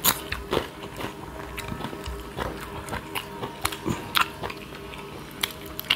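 Eating by hand: chewing and wet mouth smacks from people eating fish curry and rice, with many short clicks scattered throughout.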